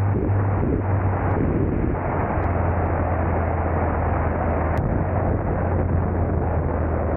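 Harley-Davidson Low Rider ST's Milwaukee-Eight 117 V-twin running steadily as the bike rides along, with a constant low engine note and wind rushing over the microphone.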